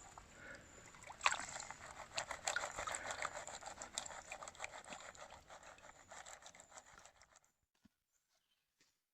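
Water and gravel washing off the lip of a gold pan as it is panned, a steady trickling with small stones clicking, that stops about seven seconds in.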